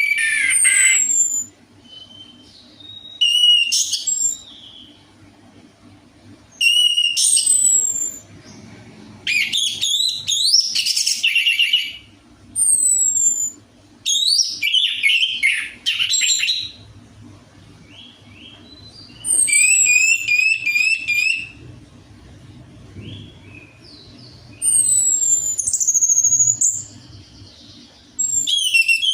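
Orange-headed thrush singing: a string of short, varied phrases of whistled notes, high falling glides and quick trills, each a second or two long, with short pauses between them. This is a lure song of the kind played to set caged birds singing.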